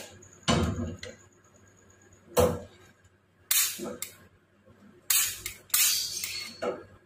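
A gas stove burner being lit with a long piezo gun lighter, amid the clatter of the iron tawa on the burner: about five separate sharp clicks and clanks with short pauses between.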